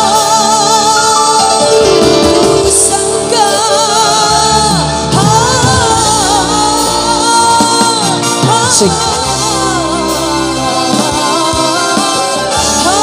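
A young male singer performing a dangdut song live through a PA, with strong vibrato on held notes over a full band accompaniment.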